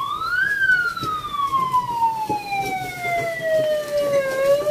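Ambulance siren wailing: one tone rises to a peak about half a second in, falls slowly for nearly four seconds, then begins to rise again near the end.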